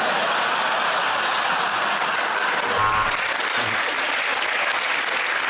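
Studio audience applauding steadily after a joke, with laughter mixed in.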